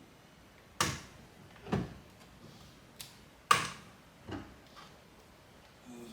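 Steering wheel being worked loose from its column: about six sharp knocks and clunks over a few seconds as the tight-fitting wheel is pulled and jolted free.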